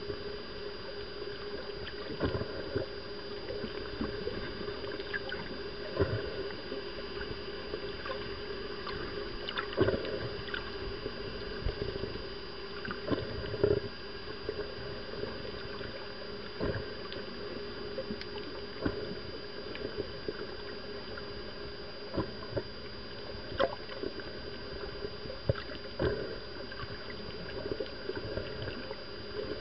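Underwater ambience picked up by a submerged camera: a steady hum with a thin high whine, broken by scattered irregular clicks and knocks.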